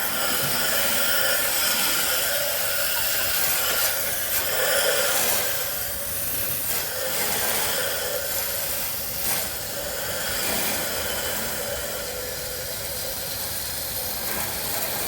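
Garden hose nozzle spraying a steady stream of water onto a heat pump's outdoor coil fins, a loud even hiss that starts abruptly and swells a little now and then.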